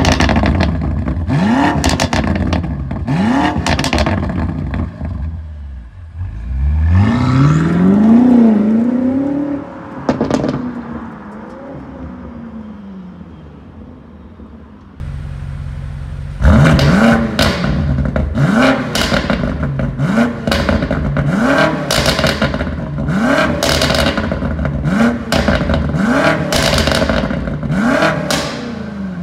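BMW M5 Competition's twin-turbo V8 through an aftermarket cat-back exhaust that replaces the factory particulate filter: revved in sharp blips with crackling on the overrun, then a longer pull that fades into the distance. After a cut it idles and is blipped again about once a second, each rev rising and dropping quickly with crackles between.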